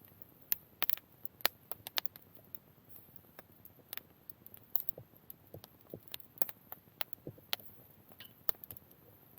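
Wood campfire crackling, with irregular sharp pops and snaps from the burning twigs and small branches.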